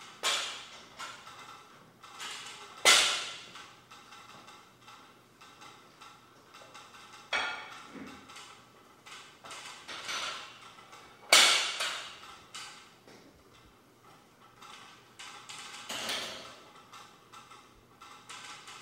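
Gym weights clanking: about five separate sharp knocks of barbell and plates that ring out briefly, the loudest about three and eleven seconds in.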